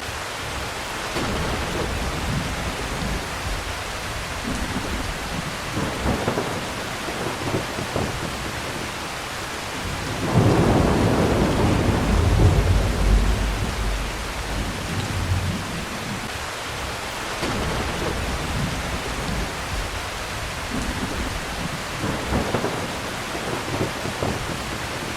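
Heavy rain falling steadily, with thunder rumbling. A louder roll of thunder swells about ten seconds in and rumbles on for around five seconds before fading back under the rain.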